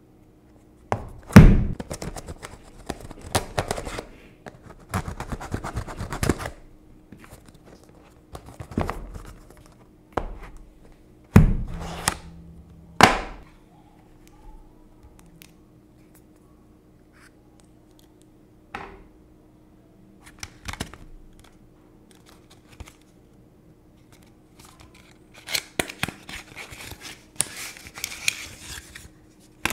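Hands opening a smartphone's cardboard packaging: knocks as box parts are handled and set down, tearing and rustling of the paper seals and sleeves, in scattered bursts with quiet gaps. A longer papery rustle near the end as the accessory sleeve holding the cable is slid out.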